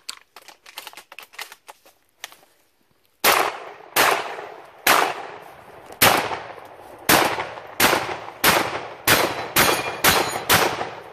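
Shotgun firing a string of about eleven shots at a steel star target, beginning about three seconds in, each blast trailing off in a short echo, the shots coming faster toward the end. Faint clicks come before the first shot.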